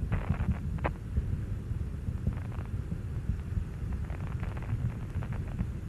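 Low, steady rumble of Space Shuttle Endeavour's rocket exhaust during ascent, with faint crackles near the start, around the middle and again toward the end.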